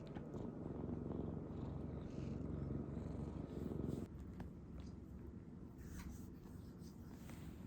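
Domestic cat purring close to the microphone, a steady low rumble that drops to a fainter purr about four seconds in.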